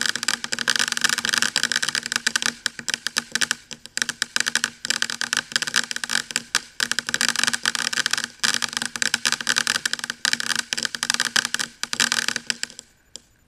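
A ground fountain firework spraying sparks with a dense, rapid crackle over a steady hiss, which dies out shortly before the end.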